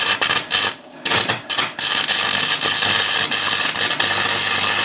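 Welding arc crackling as the steel tube of an engine mount is tack-welded to a car's subframe: a few short bursts in the first two seconds, then one steady run of about three seconds.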